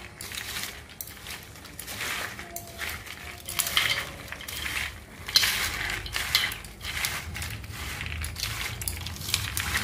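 Hands tossing soaked chickpeas and cut potato pieces in a steel plate, the chickpeas rattling and scraping against the metal in irregular clatters, one sharp clink about halfway through.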